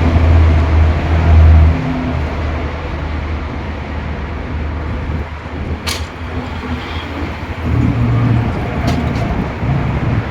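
A motor vehicle passing close by: its engine hum is loud for the first two seconds, then drops away into a steady rushing noise. A sharp click comes about six seconds in.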